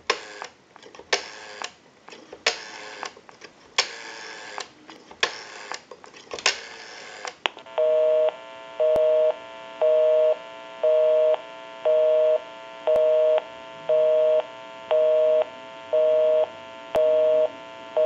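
Automatic Electric Monophone rotary dial being dialed, with the clicking of each digit's pulses coming over the line about every second and a half. About eight seconds in, a busy signal starts: a two-tone beep, half a second on and half a second off, because the number called is busy.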